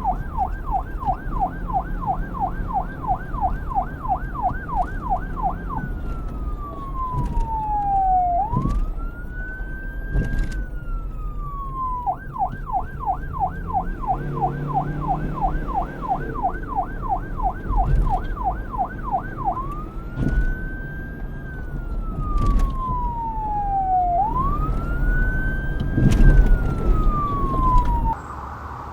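Police car electronic siren switching between a fast yelp, about four rises a second, and a slow wail that rises and falls twice, then back to the yelp and another two wail sweeps. A low rumble runs underneath, and the siren stops abruptly near the end.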